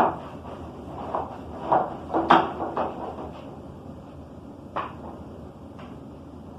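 Irregular knocks and clatter of tools and toolbox parts being handled during disassembly, about half a dozen hits with the loudest, briefly ringing one a little over two seconds in and a last one near five seconds.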